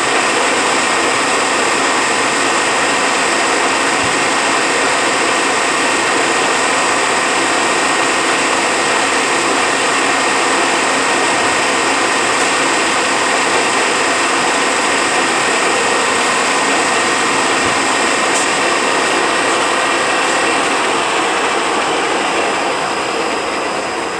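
Rebuilt Eaton Fuller RTLO-18918B 18-speed truck transmission running on a dyno test stand: a steady mechanical running noise with a held whine, easing off near the end.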